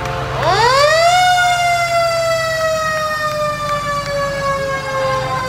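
Antique fire engine's mechanical siren winding up sharply about half a second in, then slowly winding down in pitch as it coasts.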